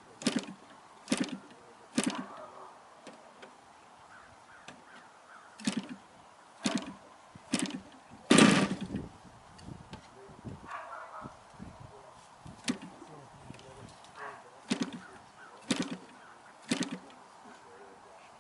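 35cc two-stroke gas engine of an RC aerobatic plane being started by flipping the propeller: a run of single sharp pops, roughly a second apart with pauses between sets, and one longer sputter about eight seconds in, without yet catching and running.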